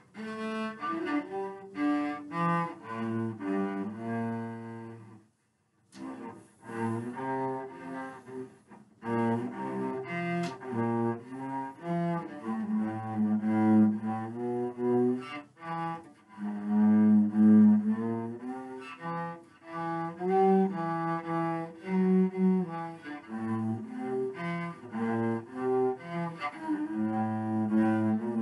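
Solo cello bowed, playing a melody in a run of short, separate notes, with one brief pause about five seconds in.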